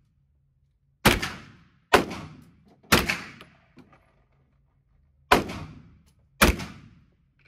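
Tan bullpup carbine fired five single shots, about one a second with a longer pause after the third, each crack followed by a short echoing tail from the indoor range.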